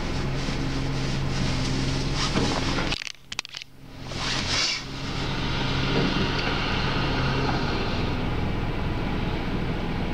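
A vehicle engine running steadily with a low hum. The sound drops out abruptly for about a second around three seconds in, then resumes.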